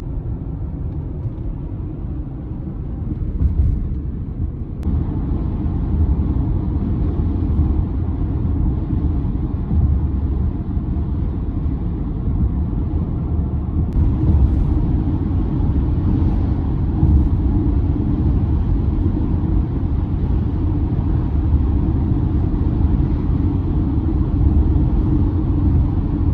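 Steady low rumble of road and engine noise inside a car cruising on a highway. The noise shifts abruptly about five and fourteen seconds in.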